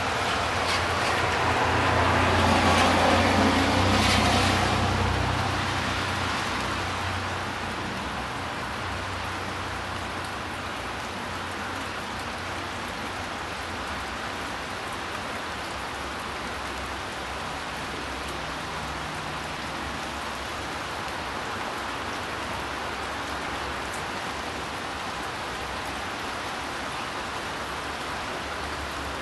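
Steady rain falling. In the first few seconds a passing vehicle's rumble and tyre noise swells up and fades away.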